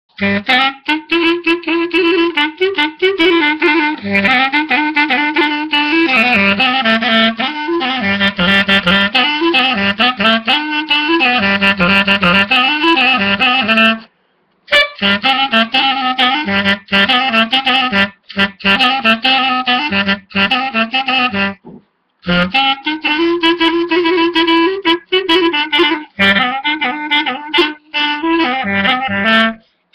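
Unaccompanied clarinet playing a kolo, a Balkan folk dance tune, in quick running notes. It breaks off for two short pauses, about halfway through and again about two-thirds of the way in.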